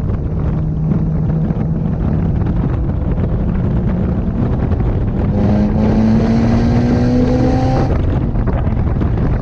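Mitsubishi Lancer Evolution IX MR's turbocharged four-cylinder engine heard from inside the cabin under wind and road noise. The engine note holds steady, then climbs steadily under throttle from about halfway through with a hiss riding over it. Near the end it drops off abruptly.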